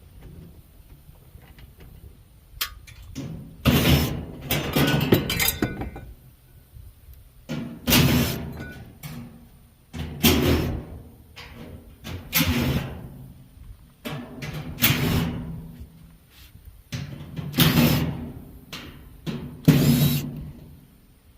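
Repeated heavy blows on an appliance's sheet-metal cabinet during scrapping, one about every two to three seconds, each ringing briefly and dying away.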